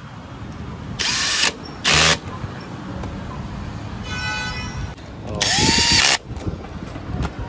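Cordless drill-driver with a hex bit running in three short bursts, driving down the terminal bolts on an electric scooter's battery pack. The last and longest burst rises in pitch as the motor spins up.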